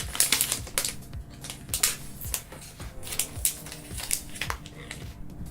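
A small cardboard blind-box package being opened by hand: an irregular run of short crackles, rips and rustles as the cardboard and packing are pulled apart.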